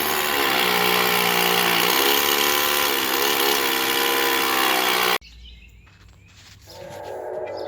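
Power tool running loudly with a whine that dips and recovers in pitch as it works under load, amid the gas-line repair work. It cuts off abruptly about five seconds in, and soft music begins near the end.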